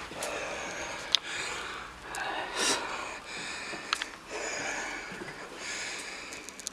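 A person breathing close to the microphone, in slow hissy breaths about every one to two seconds. Two sharp clicks, about a second in and about four seconds in.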